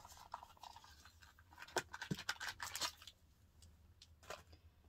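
A small product box being handled and opened by hand: a few sharp clicks and a scratchy rustle of packaging.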